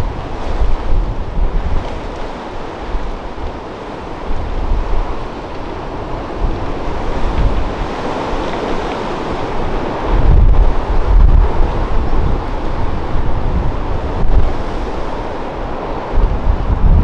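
Rough sea surf breaking and churning in a storm, with strong wind buffeting the microphone in low rumbling gusts, heaviest about ten seconds in and again near the end.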